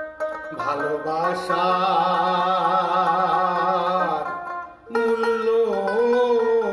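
Instrumental interlude of a Bengali baul folk song: a plucked string instrument, then long, wavering held melody notes starting about half a second in, with a short break before a second held note near the middle.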